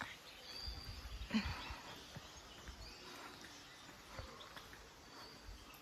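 Faint outdoor morning ambience: birds chirping in short high calls every second or two, with a few low rumbles and a light knock in the first couple of seconds.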